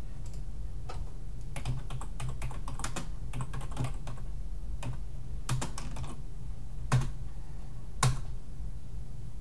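Typing on a computer keyboard: bursts of keystrokes, then two louder single key presses near the end, over a steady low hum.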